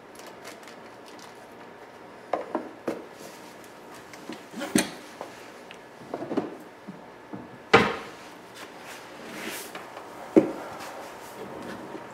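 Small parts and tools being handled while working on a cassette deck's mechanism: scattered clicks and light knocks. The sharpest knock comes about eight seconds in, and another short one about ten seconds in.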